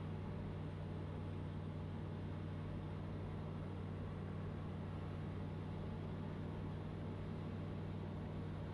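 Van's RV-12's Rotax 912 flat-four engine and propeller running steadily in flight, heard inside the cockpit as an even low drone with no change in power.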